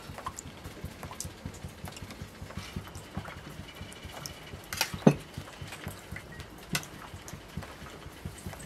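Forks and spoons clinking and scraping against enamel plates and a pan as food is served, in scattered light clicks with one louder clink about five seconds in.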